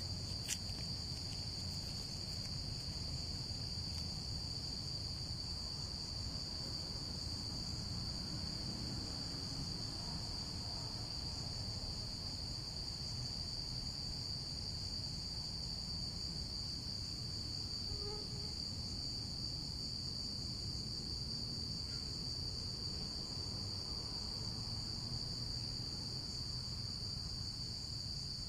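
Steady, unbroken high-pitched trilling of a cricket chorus, over a low background hum of outdoor noise.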